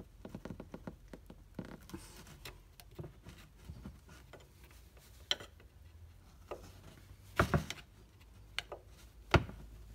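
A screwdriver scraping and clicking against a wire's retaining clip and the shock mount while it pries the wire free. The clicks are light and scattered, with a quick run of louder knocks about seven and a half seconds in and one sharp click near the end.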